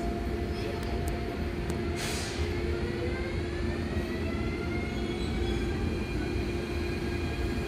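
A VR double-deck InterCity train pulling away from the platform: a steady low rumble with an electric whine that rises slowly in pitch as it gathers speed. There is a short hiss about two seconds in.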